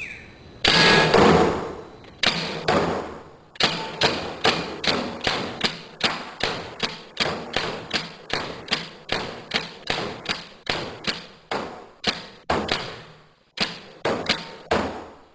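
Piranha GTI paintball gun fired in a rapid string of sharp shots, about two to three a second. A longer, louder burst of noise comes about a second in, before the string.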